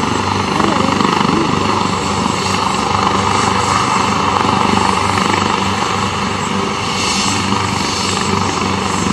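Turbine helicopter running on the ground with its rotors turning: a steady, loud whine over the rotor noise.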